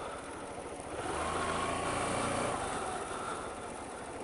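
Small learner motorcycle engine running while riding slowly. Its note swells about a second in and eases off again toward the end.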